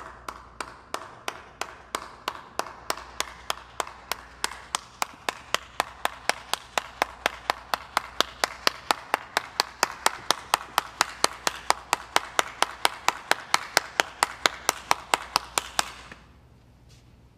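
A single person clapping, steady and unhurried at first, then speeding up a little to about four or five claps a second and getting louder, stopping about sixteen seconds in.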